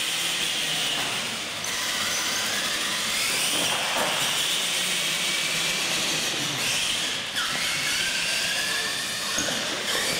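Radio-controlled monster trucks' electric motors and geartrains whining as they race on a concrete floor, the whine rising and falling in pitch with the throttle over a steady hiss.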